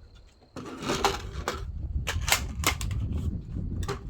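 Clicks and knocks of a 3D-printed Orca AR-15 rifle being handled and loaded: the magazine going in and the action being worked to chamber the first round. Wind rumbles on the microphone underneath.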